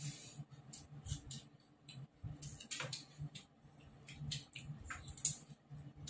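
Close-up chewing of raw green chillies: a run of irregular small crunches and wet mouth clicks.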